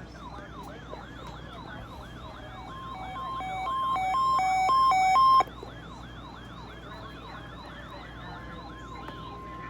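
Weather alert radios sounding for the NOAA Weather Radio weekly test. One radio gives a siren-like alarm, a quick rising sweep repeated about three times a second. From about a third of the way in, another radio's alarm alternates between two beeping tones, grows louder and cuts off suddenly. Near the end a steady high alert tone begins.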